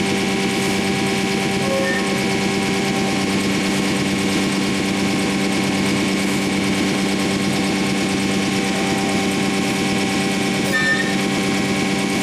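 Anderson Stratos Pro CNC router running: a steady, even machine hum made of several held tones, with no change in level.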